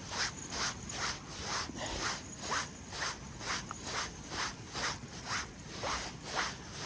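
Fixed-spool fishing reel being cranked steadily to bring in a hooked fish, each turn of the handle giving a short whirring rasp, about two a second.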